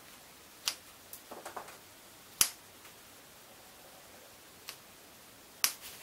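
Hand cutters snipping rubber edge trim: a few sharp, separate snaps, the loudest about two and a half seconds in, with light rustling of the trim between them.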